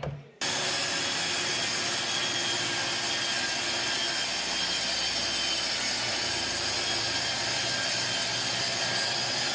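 Track saw (a circular saw on a guide rail) cutting through a sheet of melamine, with its dust extractor drawing through the hose. The steady sound starts abruptly about half a second in and holds an even level.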